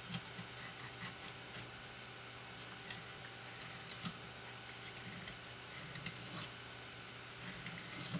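Faint, scattered clicks and scrapes of a knife cutting along a Japanese sea bass's bones as it is filleted, over a steady background hum.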